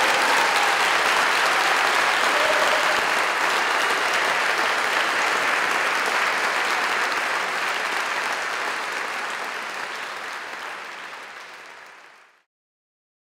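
Audience applauding steadily, the clapping fading away over the last few seconds and then stopping.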